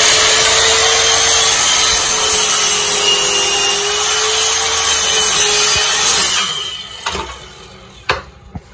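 Ryobi miter saw running and cutting through a wooden board, loud and steady for about six seconds, then switched off and winding down. A few knocks follow as the cut piece is handled.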